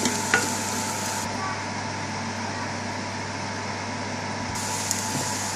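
Steady hiss and low hum at the stove while onions cook in a covered aluminium pan over a low gas flame, with one short tap about a third of a second in.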